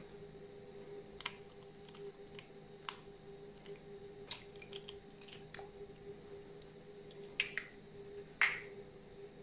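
Faint scattered clicks and ticks of an egg being cracked and its shell pulled apart over a stainless steel mixing bowl, with a faint steady hum underneath.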